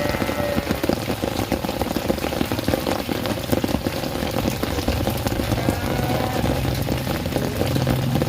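Steady rain falling and dripping on surfaces, with many small drop ticks. In the second half, a low engine hum grows louder beneath it.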